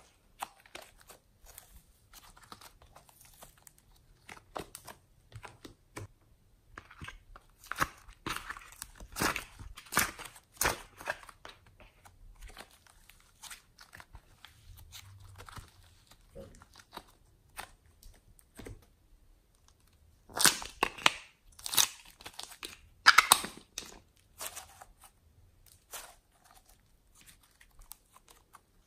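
Foam clay and soft slime being squeezed, pressed and stretched by hand, giving a run of irregular crackling clicks and pops. The pops come thickest and loudest in two spells, about eight seconds in and again about twenty seconds in.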